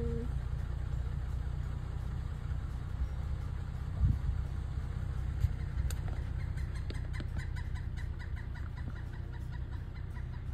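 Car driving on a backroad: steady low road and engine rumble, with two knocks about four and five and a half seconds in, then a run of light ticks and clatter for a few seconds.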